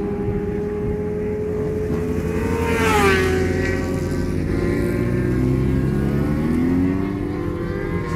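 Sport motorcycle engines running at high revs on a race circuit. The engine note drops about three seconds in and climbs again near the end.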